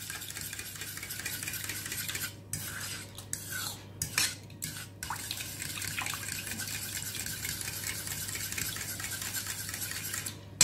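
Metal fork whisking a thin sauce of cream, sour cream and water in a stainless steel bowl: a steady scraping and clinking of the tines against the bowl, breaking off briefly a few times between about two and five seconds in.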